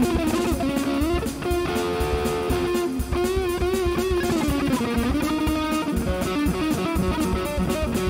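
Electric guitar played through the Mooer GE 150 multi-effects unit on its 'Leader' factory preset, a distorted lead tone on a Plexi-style amp model. It plays held notes with vibrato and bends over a steady drum beat.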